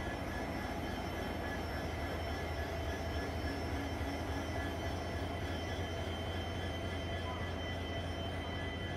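Indian Railways diesel locomotive's engine running steadily at close range: a constant low rumble with a steady whine over it.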